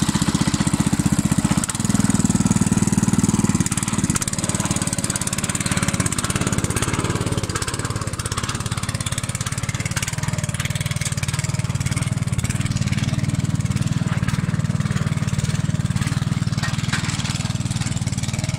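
Ruris 731K walk-behind tractor's 7.5 hp single-cylinder petrol engine running under load as it pulls a trailer loaded with branches. It revs up about two seconds in, then settles to a steady note.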